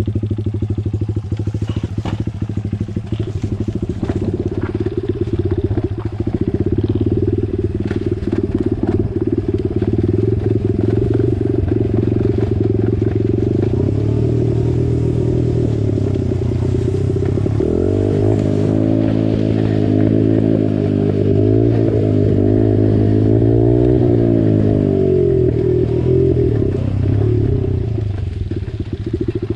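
Small four-stroke single-cylinder pit bike engine running at low speed on a trail ride, its note rising and falling with the throttle, with more throttle changes about two thirds in. Scattered clicks and clatter from the tyres over sticks and stones.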